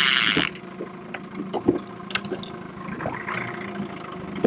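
Baitcasting reel's drag buzzing as a hooked landlocked salmon pulls line off, stopping about half a second in. Then the boat's motor hums steadily under scattered clicks and knocks as the reel is cranked.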